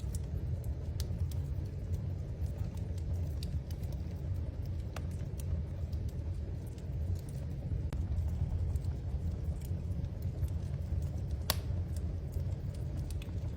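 Wood fire in a fireplace crackling: scattered small pops and snaps over a low, steady rumble, with one sharper pop late on.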